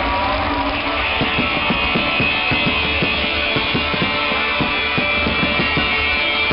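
Rock music with a distorted electric guitar and a dense, thumping low beat.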